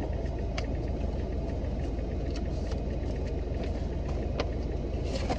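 Steady low rumble of a car's engine heard from inside the cabin, with a few light clicks and rustles.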